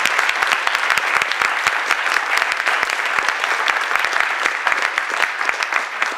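Audience applause: a dense patter of many people clapping that slowly thins and fades toward the end.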